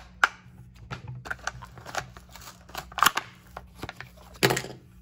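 Hot Wheels blister card being torn open by hand: the cardboard backing and plastic bubble crackle and click in a quick, uneven run, with louder tearing rips about three seconds in and near the end.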